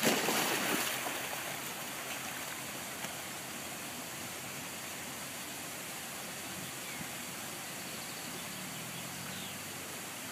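A splash as a dog plunges into the pond, dying away over about a second and a half, then a steady rushing noise like running water.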